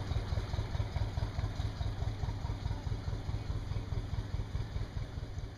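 Working narrowboat's diesel engine chugging with a steady low beat, slowly fading as the boat draws away.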